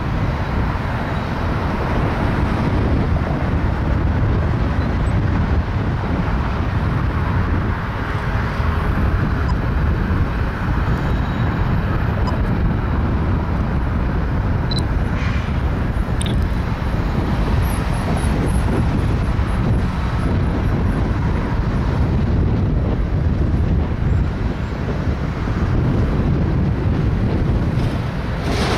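BNSF diesel-electric locomotives heading a stack train, their engines giving a steady low rumble as they approach.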